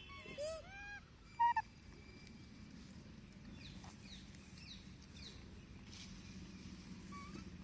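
Young rhesus macaques calling: a few short rising-and-falling coos in the first second, then two loud, sharp calls about a second and a half in.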